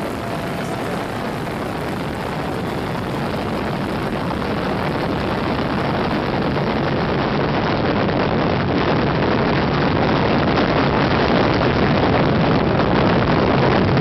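Riding noise from a Moto Guzzi Breva 1100 motorcycle at road speed: steady wind rush over the microphone, with the air-cooled V-twin engine running underneath. It grows steadily louder.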